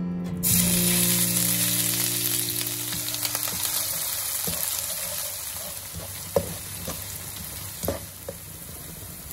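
Chopped onions dropped into hot oil sizzling loudly, the sizzle starting suddenly about half a second in and slowly dying down as they are stirred, with a few sharp clicks of the spatula against the wok.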